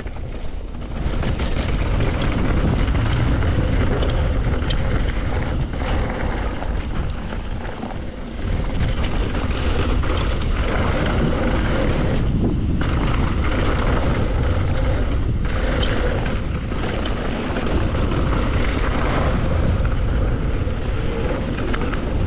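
Mountain bike descending a dirt bike-park trail: wind rushing over the camera microphone and tyres rolling on dirt, with scattered short knocks from the bike over bumps. The rush eases briefly about eight seconds in.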